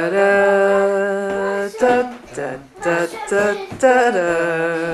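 A single voice singing a swing tune a cappella in place of dance music: long held notes with a slight waver, a run of shorter notes in the middle, then another long held note.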